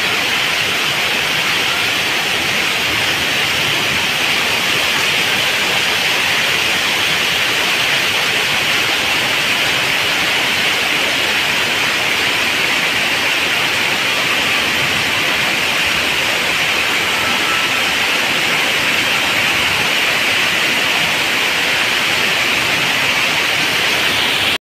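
Heavy rain pouring onto a flooded street: a steady, loud hiss of drops striking standing water. It cuts off suddenly near the end.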